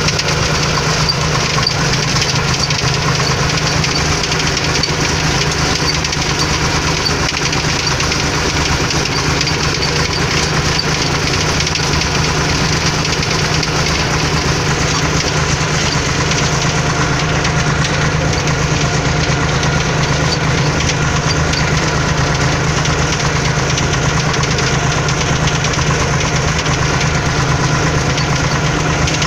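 Tractor engine running steadily as the tractor drives along, heard from inside the cab: an even, unchanging low hum with no change in speed.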